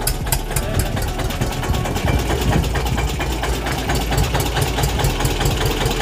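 A tractor engine idling, with a rapid, even knocking beat over a steady low hum.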